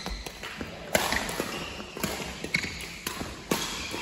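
Badminton rally on an indoor wooden court: several sharp racket hits on the shuttlecock, with short squeaks of shoes on the floor, echoing in the hall.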